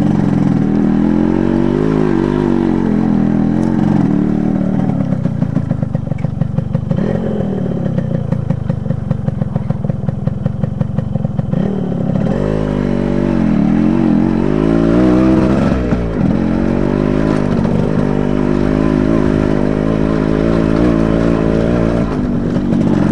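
Motorcycle engine running on a rough dirt trail. For several seconds in the first half it chugs at low revs with distinct, evenly spaced exhaust beats. Then it revs up and down and settles into a steady run.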